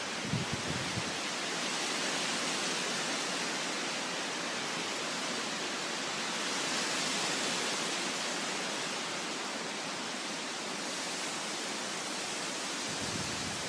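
Mountain wind blowing through the trees: a steady rushing hiss that swells and eases, loudest about two seconds in and again around seven seconds. A few soft low bumps come in the first second.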